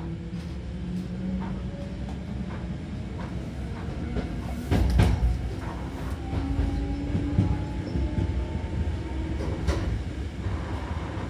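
Traction motors of a Hankyu 3000 series electric train whining in a slowly rising pitch as the train accelerates, heard from inside the car over the low rumble of the running gear. Wheels clack over rail joints, loudest about five seconds in.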